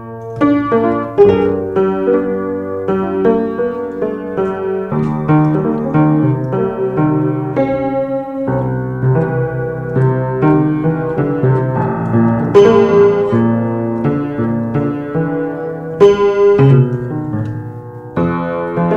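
Piano-sounding keyboard being played: a continuous run of struck notes and chords, each note sounding and then fading.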